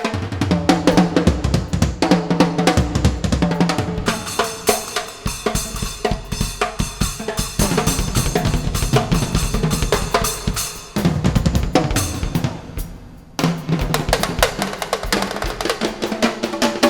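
Instrumental music driven by a drum kit, with busy snare and bass-drum hits over sustained pitched instruments. The drums thin out briefly about twelve seconds in, then come back in sharply.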